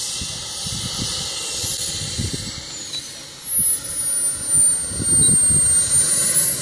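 Model jet turbine of a scale BAE Hawk running as the model taxis on grass. A high whine dips in pitch in the middle and rises again near the end, over low gusty noise.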